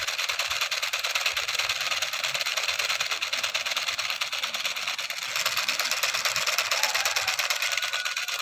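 Battery-powered toy pistol sounding its electronic firing effect: a fast, continuous machine-like rattle from a small speaker.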